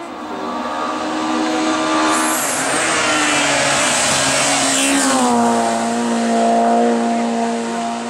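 Peugeot 106 hill-climb car's engine revving hard as it approaches and passes close, loudest in the middle with a rush of noise. The pitch drops sharply about five seconds in, then the engine holds a steady high note as it pulls away uphill.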